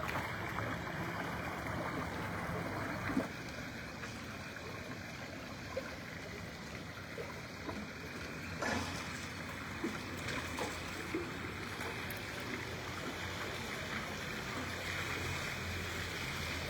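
Floodwater running steadily along a street after heavy rain, a continuous rushing and trickling with a few small splashes.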